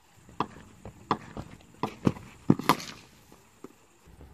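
A scattering of sharp knocks and taps, about six in the first three seconds, the loudest near the middle, then quieter.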